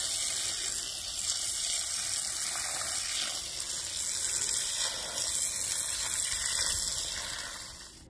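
Garden hose spray nozzle running a gentle stream of water onto freshly dug dahlia tubers and soil: a steady hiss of spray and splashing, rinsing the dirt off. It fades away near the end.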